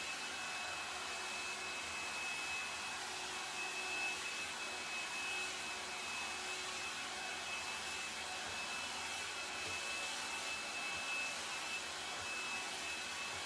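L'ange Le Volume hot-air brush (round-brush blow dryer) running steadily while being drawn through hair: an even blowing hiss with a thin, high, steady whine from its motor.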